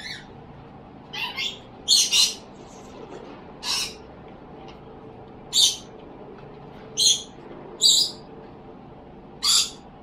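A bird giving short, harsh calls at irregular intervals, about eight in all and some in quick pairs, over a steady low background hiss.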